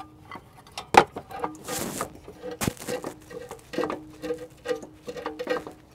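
Irregular clicks and knocks of metal fittings as oil cooler lines are wiggled side to side to free them from the oil filter adapter housing. The loudest knock comes about a second in, and there is a short scraping rub just before two seconds.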